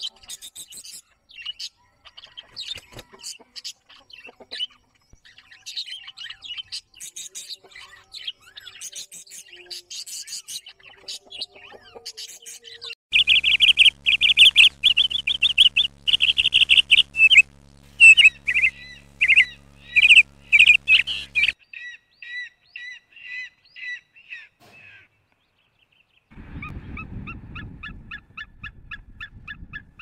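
Budgerigars chattering and warbling in fast, high chirps, then sulphur-crested cockatoos screeching loudly in repeated harsh calls, the loudest part, from about 13 to 21 seconds. After a short pause near the end comes a rapid, rhythmic series of yelping calls from white-tailed eagles at their nest.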